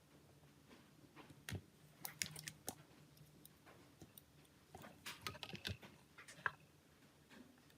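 Quiet, irregular small clicks and taps of a Nokia E71's plastic and metal parts being handled and worked on with small tools, in two clusters with one sharper click near the end.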